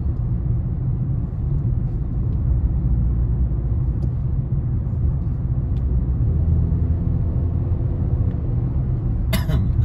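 Steady low rumble of road and engine noise heard inside a moving car's cabin. Near the end a brief sharper sound cuts in.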